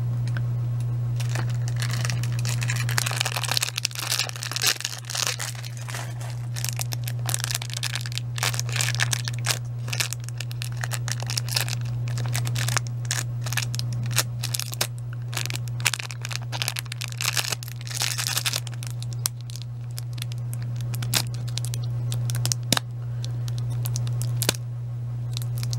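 Close handling noise: dense irregular crinkling, rustling and small clicks, like plastic or cellophane being handled near the microphone, over a steady low hum.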